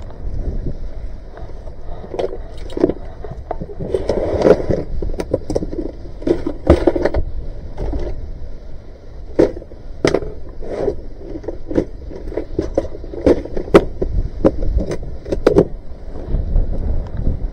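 Irregular knocks, taps and clatter of fishing gear and plastic boxes being handled and shifted about in the back of a car, over a low rumble of wind on the microphone that grows stronger near the end.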